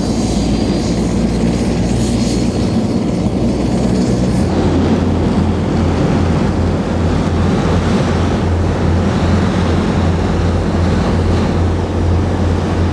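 Propeller airplane's engines droning steadily in flight. About four seconds in, a thin high whine stops and the sound becomes a heavier, deeper hum, as heard inside the cabin.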